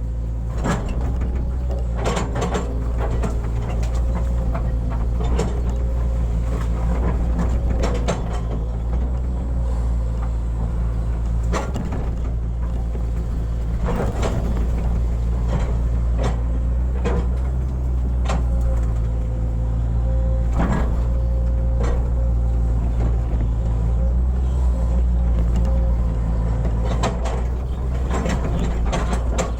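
Hitachi excavator's diesel engine running steadily at working speed, with a steady whine and scattered sharp knocks as it digs.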